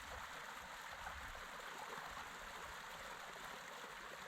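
Creek water running over rocks: a steady, even rushing.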